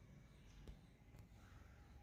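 Near silence, with two faint clicks about half a second apart, just under a second in.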